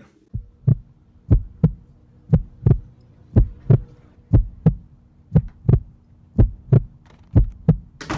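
Heartbeat sound effect: paired low thumps, a lub-dub about once a second, over a steady low hum.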